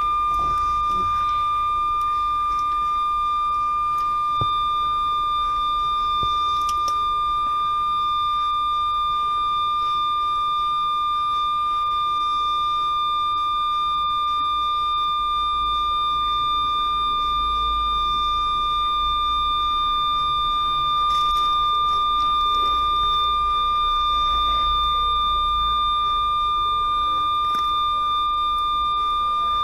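One long, unbroken electronic beep at a steady high pitch, over faint room noise and a low rumble.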